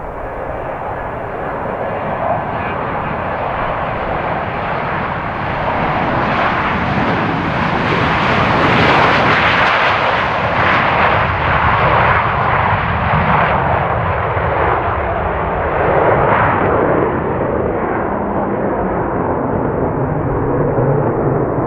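Boeing 727's three JT8D jet engines roaring as the airliner passes, swelling to a peak with a sharp hiss about nine seconds in, then settling into a lower rumble as it moves away.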